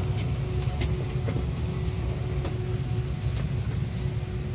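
Steady low hum of an Airbus A330-300 cabin's air system during boarding, with a faint steady tone above it and a few light clicks.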